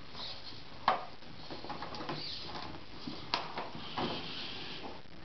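Electric RC rock crawler climbing over parked RC trucks, its tyres and chassis knocking against their plastic bodies with the faint whir of its motor and gears. One sharp knock about a second in, then several smaller knocks later on.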